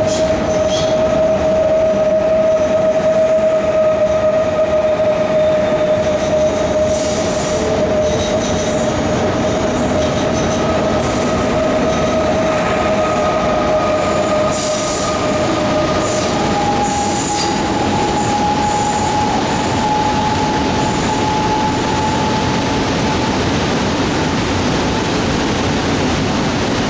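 Electric passenger train moving along the platform: a steady, loud rumble of wheels on rails with a squeal held on one note. About two-thirds of the way through, the squeal jumps to a higher note.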